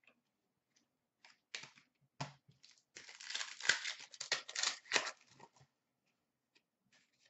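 Hockey card pack wrapper crinkling and tearing for about two and a half seconds, starting about three seconds in. A couple of soft clicks of cards being handled come before it.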